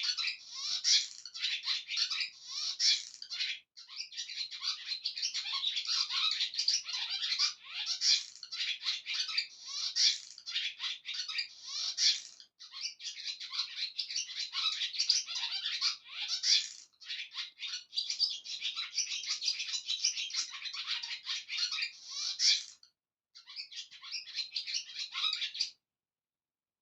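Many small birds chirping rapidly and continuously, a dense chatter of short high notes broken by a few brief gaps.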